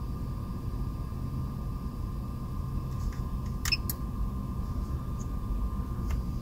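Steady low rumble with a faint steady whine, broken by a few sharp clicks of small gear being handled: a close double click a little past halfway and a single click near the end.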